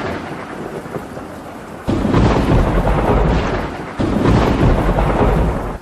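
Thunderstorm: rain with rolls of thunder, two loud deep claps breaking in suddenly about two and four seconds in, each rumbling for a couple of seconds.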